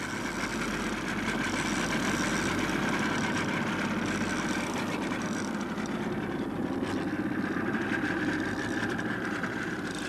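Boat engine running steadily at low speed.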